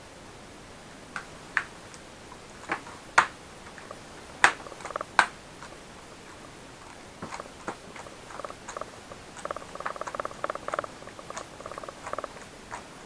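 Sharp clicks and taps of laptop parts being handled during disassembly or reassembly, followed from about seven seconds in by a rapid, faint buzzing rattle.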